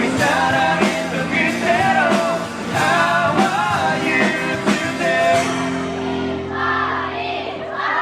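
Live rock band playing the final bars of a song: drum hits on the beat over guitars and bass until about five and a half seconds in, then a last chord held and ringing out. The audience starts cheering near the end.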